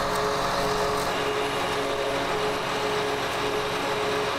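John Deere 8R 370 tractor's diesel engine idling, a steady hum with a constant tone.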